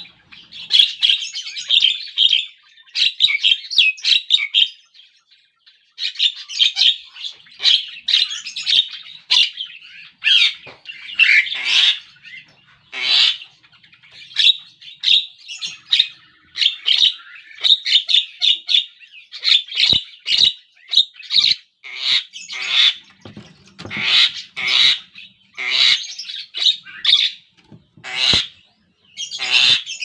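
Javan myna calling: a long run of quick chattering chirps and harsh squawks in phrases of a second or two, with short pauses between them and one longer pause about five seconds in.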